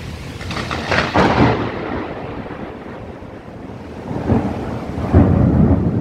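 Heavy thunderstorm: steady rain and wind noise with two loud surges of thunder, one about a second in and a deeper, longer one starting around four seconds in.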